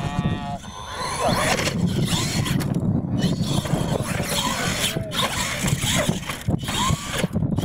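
Radio-controlled monster truck's electric motor whining, rising and falling in pitch as it is throttled, over a steady outdoor noise.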